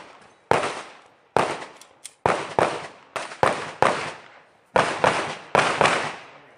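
Pistol shots fired in quick succession on a shooting stage, about nine in all, several in fast pairs, each a sharp crack with a short echoing tail.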